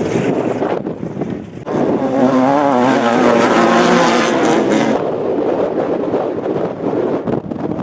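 Off-road race vehicle's engine revving hard, its pitch wavering up and down, then giving way to a rougher, noisier rush about five seconds in. There is a brief dip in the sound about one and a half seconds in.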